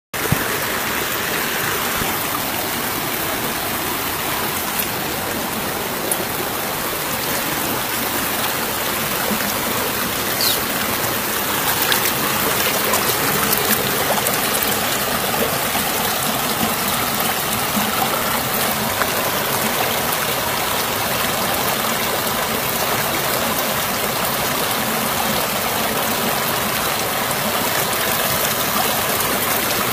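Shallow river water rushing steadily over rocks around the wader's feet, with a few faint ticks about halfway through.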